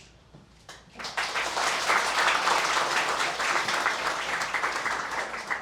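Audience applauding, starting about a second in just after the last note of the piece dies away.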